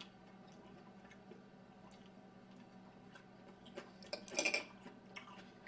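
Quiet eating at a table: faint scattered clicks of chopsticks and mouth sounds over a steady low hum, with a short louder noisy sound about four seconds in.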